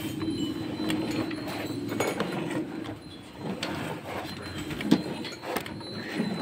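Gir cross cow being milked by hand: jets of milk squirting from the teats into a steel pail of frothy milk, in quick, uneven pulses, the sharpest a little before the end.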